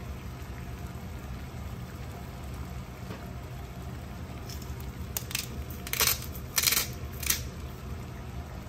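Saucepan of water at a rolling boil, bubbling steadily, with a few short, louder bursts in the second half.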